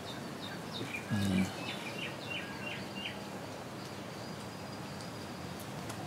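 Small birds chirping, a quick run of about six repeated high notes between one and three seconds in, over steady background hiss. About a second in comes a brief low hum from a voice, the loudest sound.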